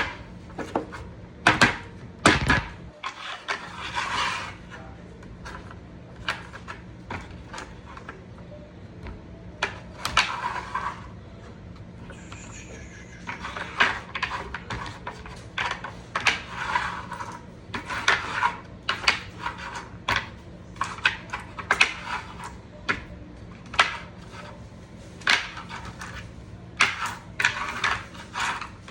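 Rifle cartridges clicking and clinking as they are set one by one into a magazine loader's feed channel, with irregular sharp clicks and short rattles throughout.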